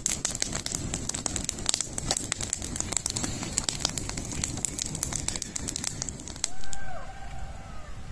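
Dry-brush bonfire crackling, with many sharp pops. The crackling stops about six seconds in, and a short pitched call that rises then falls follows near the end.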